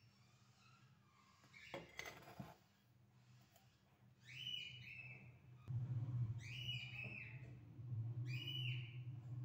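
Short, high whistle-like calls repeating about once every two seconds from about four seconds in, over a low steady hum that starts about six seconds in. A brief clatter comes around two seconds in.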